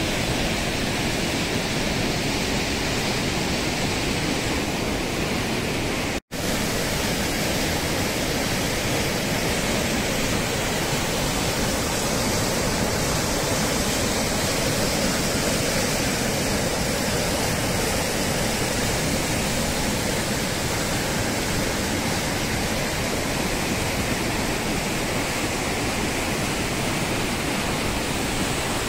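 Steady rushing of a muddy, rain-swollen mountain torrent pouring through a rocky gorge and over a waterfall. The sound cuts out for an instant about six seconds in.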